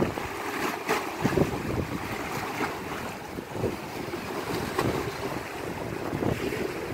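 Choppy, wind-driven lake waves washing and splashing against concrete steps and shoreline rocks, with wind buffeting the microphone.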